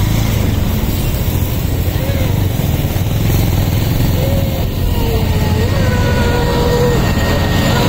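A heavy vehicle engine running steadily at close range, a loud low rumble, most likely the fire engine's engine working at the scene.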